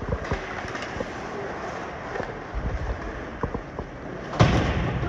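Ice hockey play in a rink: scattered sharp clicks of sticks and puck over a steady noise of skates and crowd, then one loud bang near the end.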